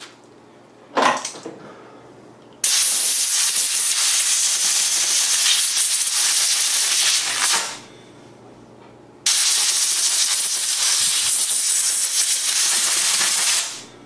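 Pressurized spray nozzle hissing in two long blasts, about five and four and a half seconds, blowing out the inside of a folding pocket knife held in a towel. A brief knock about a second in.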